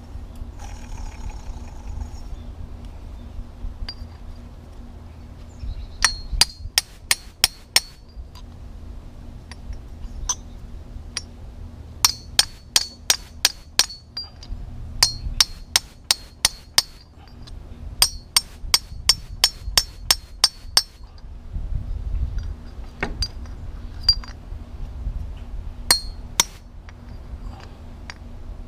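Hammer striking a punch set on a Hustler Raptor SDX mower deck spindle housing, driving out the worn spindle bearing. Runs of sharp, ringing metal blows, about three a second, six to eight at a time, with pauses between.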